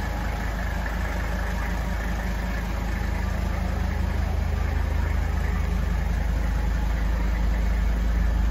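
1979 Mercedes-Benz 300SD's 3.0-litre turbodiesel inline-five idling steadily, warmed up a little, getting slightly louder toward the end.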